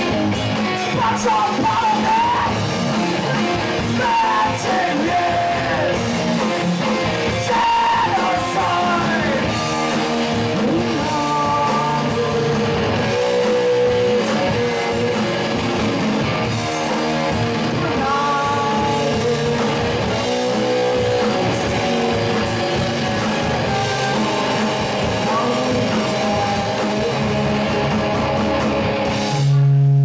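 Live rock band playing: electric guitars, electric bass and drums, with singing. Pitched lines slide up and down through the first ten seconds, and a loud held low note sounds right at the end.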